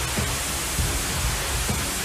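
Background music under a steady, loud rushing hiss, with a low pulse beneath it.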